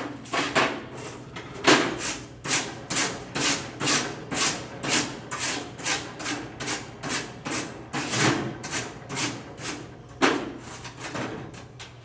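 Rhythmic scraping strokes, about two a second, like a brush or file worked back and forth, with a few heavier strokes standing out.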